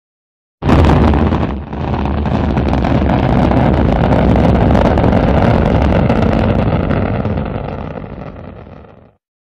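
Rocket engine roar, a loud, even rushing rumble that starts suddenly and dips briefly about a second later. It holds steady, then fades and cuts off just before the end.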